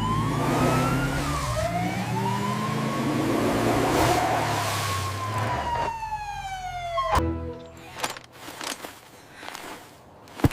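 Ambulance siren wailing in slow rising and falling sweeps. It cuts off suddenly about seven seconds in, and a few scattered clicks and knocks follow.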